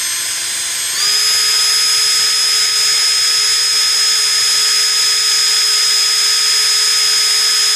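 Ingco S12 (CIRLI1201) 12-volt cordless impact driver spinning freely with no load, a steady high motor whine with no hammering. About a second in, the whine steps up in pitch and loudness as the driver goes to full speed, about 2,150 rpm.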